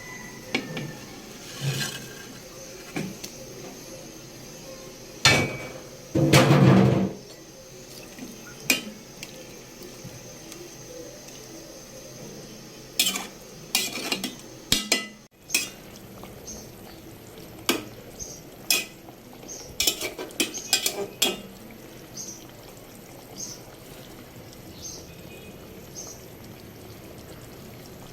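Intermittent kitchen clatter of metal utensils knocking and scraping against pots and dishes, as short sharp clicks and knocks with a longer, louder clatter about six seconds in.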